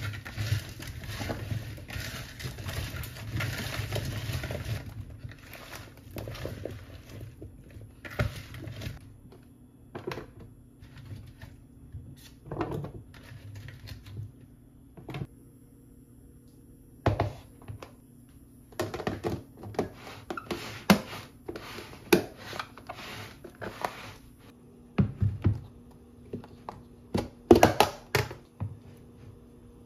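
Hands mixing cubed radish with chili flakes and seasoning in a glass bowl make a squishing, rattling sound for the first five seconds. After that come scattered knocks as the seasoned radish pieces (kkakdugi) are dropped into a plastic food container, and a clatter of the plastic lid near the end.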